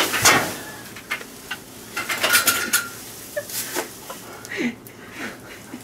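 A sharp slap-like hit right at the start, then rustling cloth and knocks as a man falls to the floor onto straw, pulling a hanging curtain down with him, with snatches of stifled laughter.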